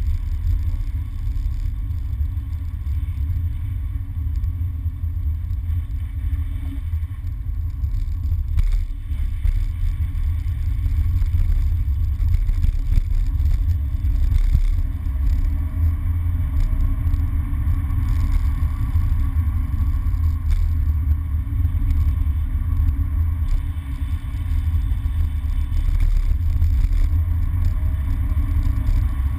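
Car engine and tyre noise heard inside the cabin of a MINI hatchback on the move: a steady low rumble that swells slightly a little under halfway through and again near the end.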